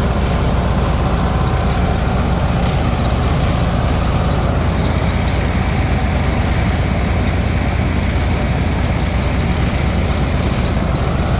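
Farm tractor engine running steadily, a constant low drone with no change in speed.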